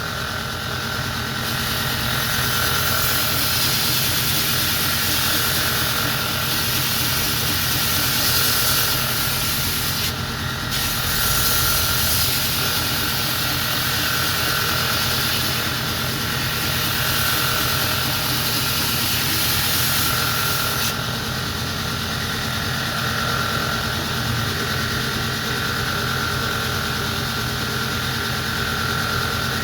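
Belt grinder motor running steadily while a steel bill hook is pressed to the moving belt, giving a grinding hiss from about a second and a half in until about 21 s. The blade is lifted off once, briefly, around 10 s; after about 21 s the grinder runs on its own.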